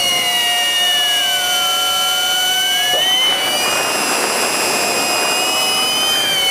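FPV quadcopter's brushless motors and propellers whining in flight: several high tones at once, each sliding up and down as the throttle changes. A rougher rushing noise joins about halfway through.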